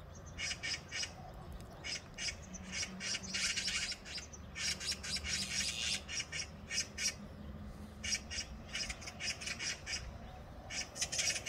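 A flock of magpies, azure-winged and common, giving harsh rasping calls in quick runs: a squabble over places on a power line. A low steady hum runs beneath for part of it.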